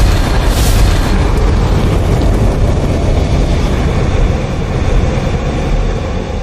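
Fiery logo-reveal sound effect: a loud, deep rumbling burn like a roaring blaze, with a brief sharp hiss about half a second in, starting to fade near the end.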